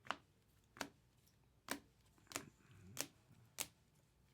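Trading cards being set down one at a time on a table: six sharp taps, a little under a second apart.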